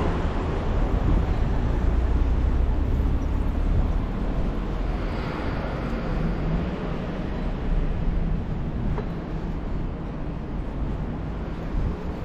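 Steady low rumble of city street traffic, with the sound of passing vehicles.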